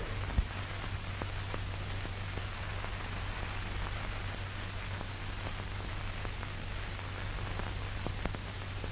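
Worn soundtrack noise of an old 1940 film: a steady hiss over a low hum, with scattered crackles and clicks and one sharper pop about half a second in.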